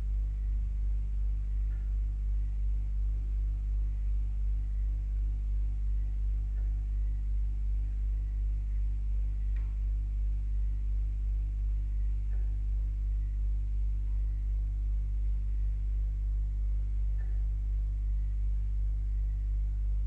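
Pump running while water drains through a pipe: a steady low hum with a slight regular pulsing, and a few faint ticks scattered through it.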